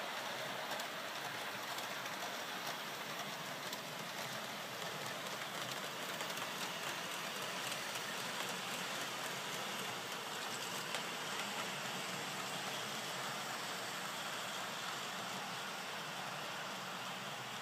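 OO gauge model trains running on the layout's track: a steady whir of motors and wheels on the rails with faint scattered clicking.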